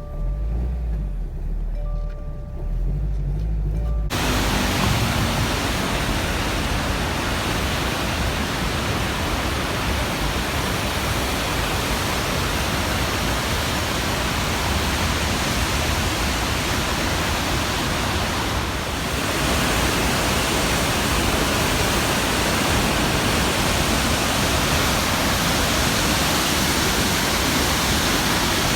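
Steady rushing roar of heavy-flowing water, starting abruptly about four seconds in after a low rumble. The flow is swollen after a typhoon.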